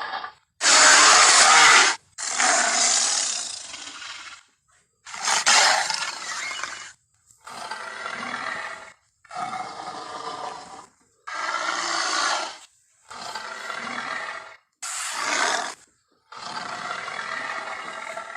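A string of giant-ape roars and grunts, the King Kong sound effects from the 2005 film, played one after another, each one to two seconds long with a short silence between. The loudest roar comes about a second in.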